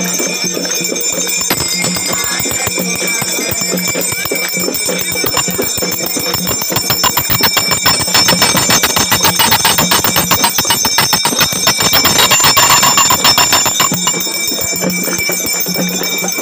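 Bells rung rapidly and continuously, as rung during aarti worship, a dense run of fast strikes that grows louder about halfway through and eases near the end.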